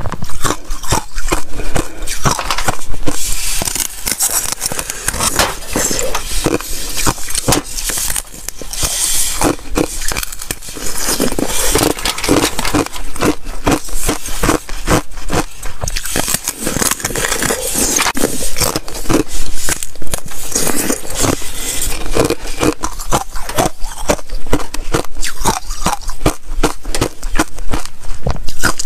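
Close-miked cracking and crunching of thin sheet ice being snapped and bitten, a dense run of sharp cracks throughout.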